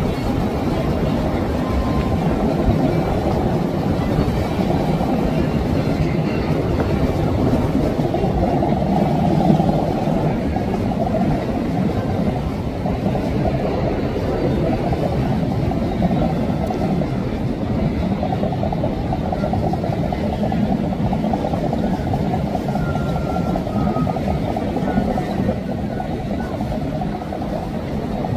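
Steady low rumble of passing motorboat engines mixed with churning wake water.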